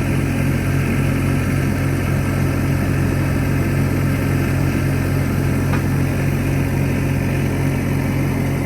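Skid steer engine running at a steady speed.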